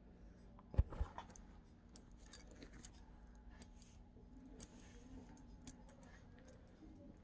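Quiet room tone with a low hum, a soft knock about a second in, then faint scattered clicks.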